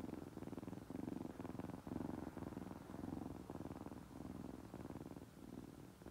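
Tabby kitten purring steadily and close up, a low buzzing purr that swells and eases about once a second.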